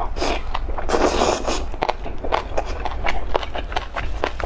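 Close-up chewing of crispy fried Chinese chives: a quick, irregular run of crunchy clicks.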